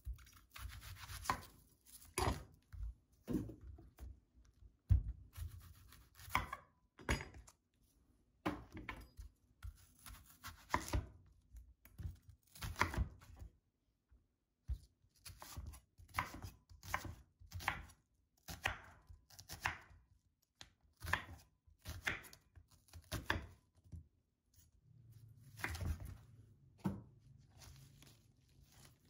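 A kitchen knife cutting an onion on a wooden cutting board: each stroke slices through the onion and knocks on the board, at an irregular pace of one or two strokes a second with short pauses.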